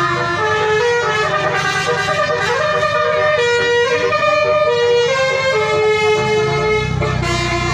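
Bus telolet horn: a multi-tone horn playing a tune of held notes that step up and down in pitch. A low rumble grows louder near the end.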